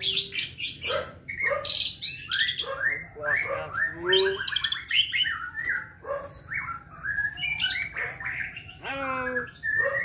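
Hill myna calling in a rapid, almost unbroken run of whistles, chirps and squawks, many of them gliding up or down in pitch.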